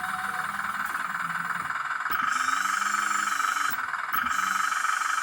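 Hydraulic pump of a 1/14 scale RC excavator running with a steady whine and hiss, getting louder about two seconds in as it works under load.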